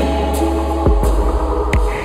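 Chill electronic music: a deep held bass under sustained synth chords, with a few sharp drum hits.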